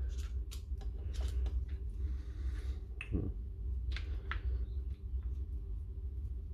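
Scattered small sharp clicks and taps of tools working the sheared-off stub of a broken gearbox shaft out of a DeWalt DCH273 rotary hammer's part, over a steady low hum.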